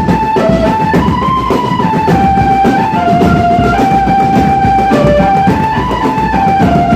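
Drum band playing a single melody line that moves in steps over dense drumming with a steady low bass-drum beat.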